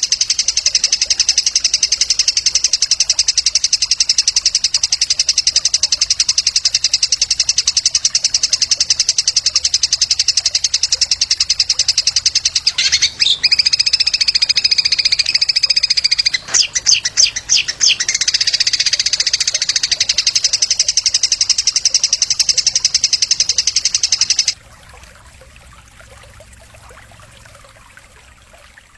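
A songbird's very rapid, high, unbroken trill from a bird-training (masteran) song recording. Partway through it changes to a held, buzzy note, then a few broken notes. The trill resumes and cuts off suddenly near the end, leaving only a faint hiss.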